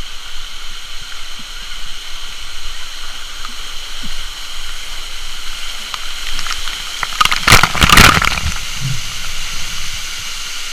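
Waterfall water rushing steadily. A loud, harsh burst of noise lasts about a second, about seven and a half seconds in.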